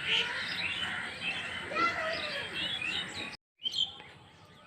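Several birds chirping and calling at once over a low outdoor hum, a morning bird chorus. The sound cuts out completely for a moment about three and a half seconds in, then quieter chirping resumes.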